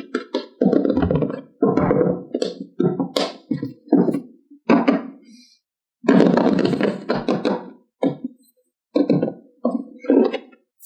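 Hard plastic toy pieces knocking and clattering as they are handled, in quick irregular knocks with a longer scrape or roll about six seconds in.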